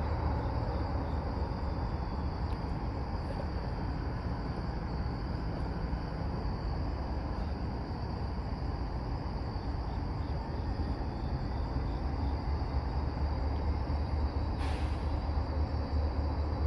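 Steady low rumble of a freight train, with insects trilling steadily in the night air. A brief hiss comes about fifteen seconds in.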